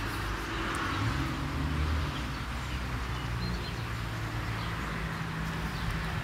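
Light rain falling as a steady, even hiss, with a low steady hum underneath and a few faint bird chirps.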